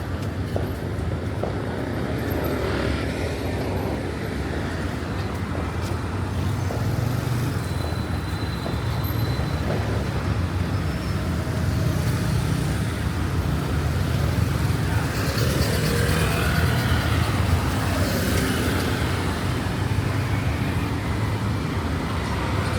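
Street traffic: steady engine and road noise from passing vehicles, with voices mixed in.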